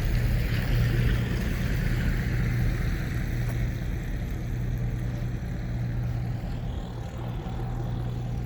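Vehicle noise: a steady low rumble, with a hiss that fades away over the first few seconds.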